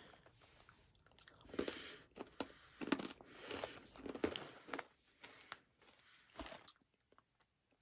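Quiet, irregular crunching and chewing of a puffed barbecue snack stick, like a crunchy cheese puff, being eaten. The crunching dies away about a second before the end.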